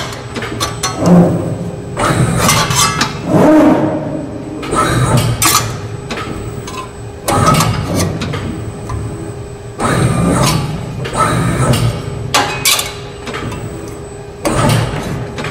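SafanDarley servo-electric press brake cycling through quick successive bends, with a dozen or so sharp, irregularly spaced metallic knocks and clinks as the sheet-metal part is pressed and set against the tooling and backgauge. A faint steady hum runs underneath.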